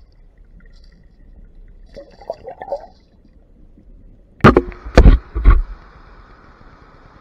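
Muffled underwater crackling and clicking on a submerged camera, then four loud thumps in just over a second as the camera is knocked about while the hooked fish is brought in, followed by a steady hiss.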